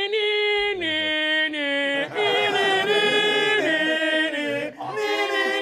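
Singing in long held notes that step down and back up like a melody, with more than one voice at times.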